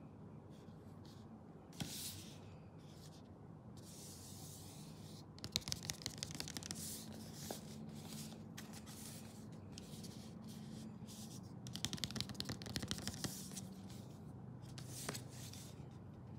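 Hands handling and opening the packaging of a Suunto Race S watch: rustling and rubbing in irregular bursts, with a few sharp clicks and two stretches of rapid crackling.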